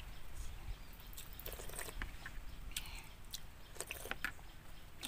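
Close-up mouth sounds of a person chewing and eating, with scattered short clicks and smacks.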